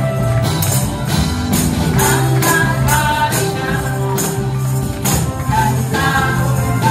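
Many handheld ribboned praise tambourines shaken and struck in rhythm over upbeat worship music, with singing.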